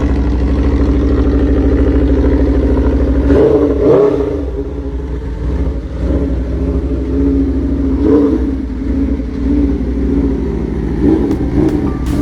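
Aprilia RSV4 superbike's 1000cc V4 engine running steadily, then revved up and let fall back several times, with peaks about four, eight and eleven seconds in.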